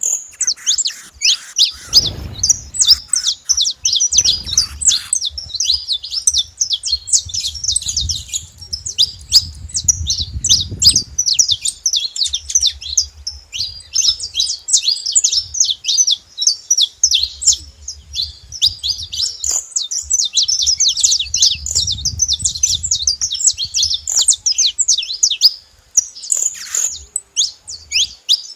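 Saffron finch singing, a fast unbroken stream of high chirps and trills. A low rumble comes and goes underneath.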